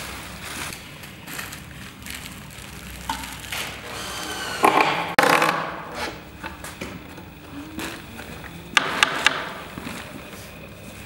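Plastic packaging and foil crinkling as hands rummage through a box, then a cordless drill whirring in short bursts as it works into a plywood frame, with a rising whine about halfway through and a few sharp clicks near the end.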